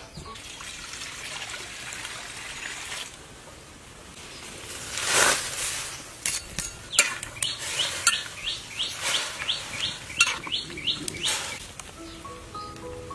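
Vegetables cooking in water in a wok over a wood fire. There is a hiss of water, a louder rush about five seconds in, then a run of about a dozen short chirps, roughly three a second.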